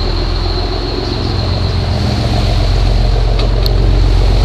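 Charter fishing boat's engine running steadily under way, a low drone under a rush of wind and water, growing slightly louder toward the end.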